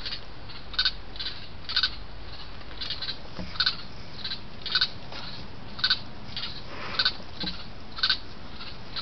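A night animal's short call repeated steadily about once a second, with a couple of faint soft knocks as a raccoon handles the trail camera.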